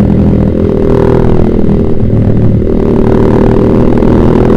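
Yamaha Vixion's single-cylinder four-stroke engine running through a Proliner TR1 short aftermarket exhaust, a steady motorcycle exhaust note at low, fairly even revs while riding.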